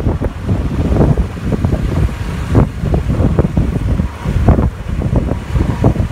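Wind buffeting the microphone of a helmet-mounted camera on a moving two-wheeler, an uneven gusting rumble, with road and traffic noise underneath.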